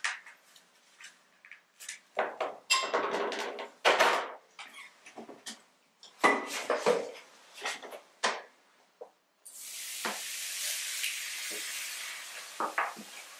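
Small objects clicking and knocking on a cluttered table for several seconds. Then, from about nine and a half seconds in, a steady hiss for about three and a half seconds as liquid is poured from a plastic bottle into a pot, fading near the end.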